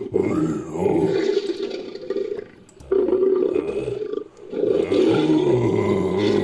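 Roaring sound effect for a fictional lion-like cat creature, built from a person's voice and lion roar recordings: three long, loud roars with short breaks between them.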